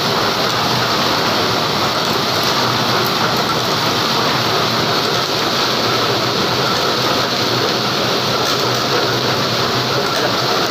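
Dog treadmill running steadily with a dog trotting on its belt: an even, unbroken noise of the moving belt and rollers with a faint low hum.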